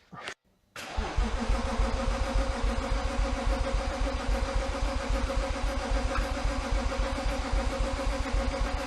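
BMW E36 328i's straight-six engine cold-starting: after a brief click, it fires up about a second in and runs on at a steady, evenly pulsing idle.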